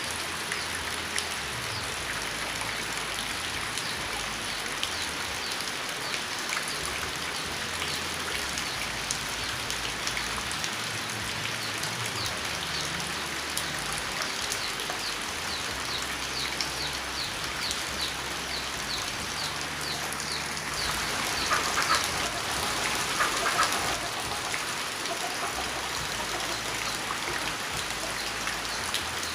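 Steady rain falling, with many separate drops heard as small clicks. A louder, rougher stretch comes about three quarters of the way through.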